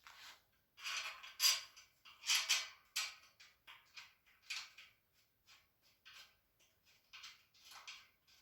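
Irregular scraping and rustling as metal shelf bars and screws are handled and screwed together, a short scrape every half second to a second, loudest in the first few seconds.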